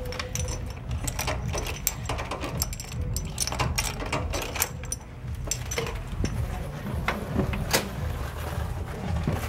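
Keys and a key card on a lanyard jangling and clicking as the card is worked into a cabin door's card lock, with many small sharp clicks; a sharper click near the end as the door is opened. A low steady hum runs underneath.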